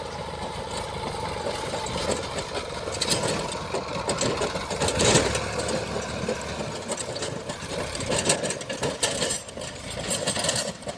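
Diesel engine of a JCB 3DX backhoe loader running at work, with several sharp knocks and clatter over it, the loudest about five seconds in.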